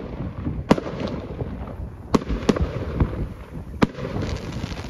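Aerial fireworks bursting: about five sharp bangs spaced irregularly over a low rumble, with a crackle of small pops near the end.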